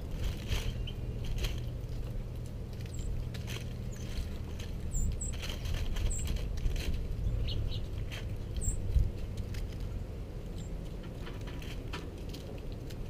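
Small birds pecking at seed on a snow-dusted wooden table: irregular light taps, with a few short, very high chirps scattered through, over a low steady rumble.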